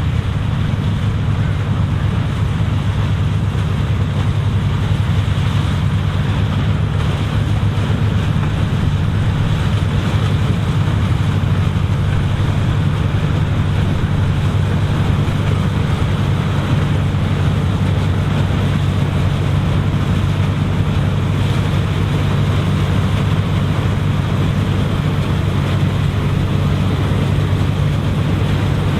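Vintage combine harvesting corn: engine and threshing machinery running steadily, a constant low drone with an even rush of mechanical noise over it.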